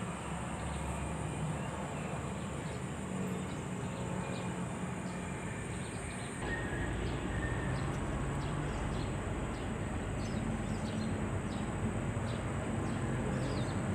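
Steady low rumble of distant road traffic, growing louder about six seconds in, over a thin high-pitched whine and scattered short chirps.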